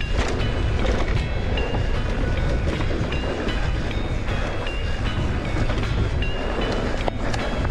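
Mountain bike ridden fast down a dirt trail: steady wind rumble on the helmet-camera microphone, the bike rattling and clattering over the bumps, with short high squeaks coming again and again.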